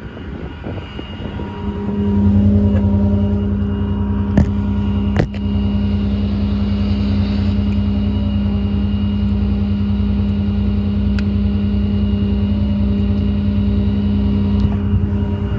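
Truck's hydraulic system working to lower the hydraulic outriggers: the 6.7 Cummins diesel runs with a steady pitched hum from the hydraulic pump. The hum swells in about two seconds in and then holds steady, with two sharp clicks a little later.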